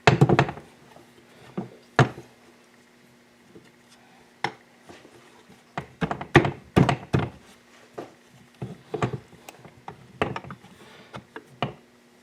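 Aluminium crankcase halves of a 2001 Yamaha WR426F engine being test-fitted together dry, without sealant: a series of irregular metal knocks and clunks, loudest at the start and in a dense cluster midway.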